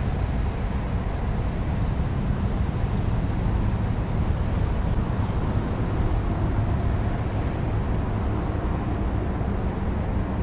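Steady low rumble of road traffic, unchanging in level.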